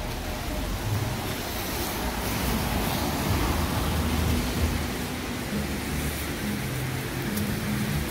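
Steady rain falling on wet city pavement, a continuous hiss, with a low hum of passing traffic beneath it that grows more noticeable in the second half.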